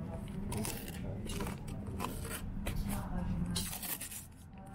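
Handling noise close to the microphone: irregular rustling and scraping, as of tape and fingers working at a camera being fixed in place, over a steady low rumble.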